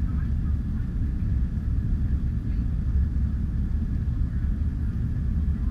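Jet airliner cabin noise during take-off: a steady low rumble from the engines and the airflow around the fuselage.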